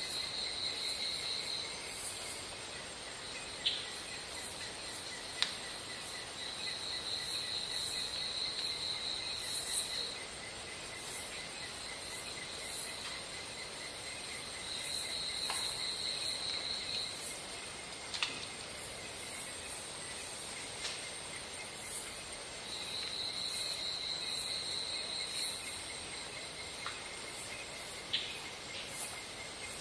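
Insects calling outdoors: a steady high buzz, with a pulsed trill that comes in spells of two to three seconds about every eight seconds. A few faint clicks sound in between.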